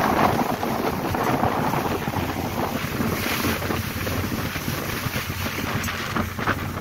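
Wind buffeting the microphone on the open deck of a moving ferry, with water rushing past the hull and a steady low drone underneath.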